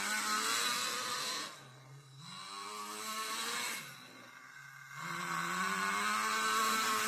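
Homemade miniature engine running with a hiss, its speed falling off twice and climbing back up: it runs steadily at first, slows and goes quieter about a second and a half in, speeds up again, dips once more near the middle, then rises back to full speed.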